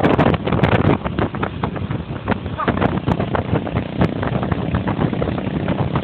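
Vehicle in motion: engine and road noise running steadily, with frequent short rattles and knocks.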